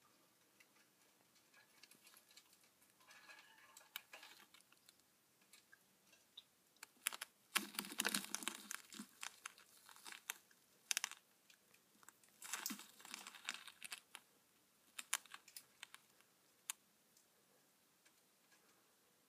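Faint, dry crackling and rustling in irregular bursts, with scattered sharp clicks, from the dry leaf litter and silk of a tarantula's enclosure as the Psalmopoeus irminia tarantula moves through it. The busiest stretch comes about a third of the way in.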